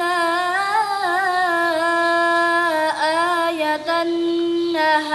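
A girl's solo voice chanting Quran recitation in the tartil style, holding long melodic notes with wavering ornaments and brief breaks about three seconds in and near the end.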